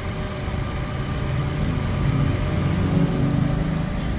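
Toyota 1NR-FE inline four-cylinder engine idling steadily after a timing-chain replacement, its earlier noise now gone. The engine grows slightly louder about two seconds in, then settles.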